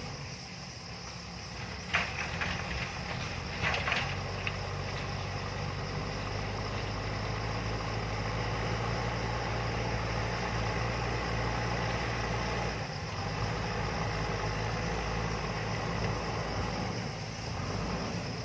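JCB backhoe loader's diesel engine running steadily, with a few sharp knocks about two and four seconds in.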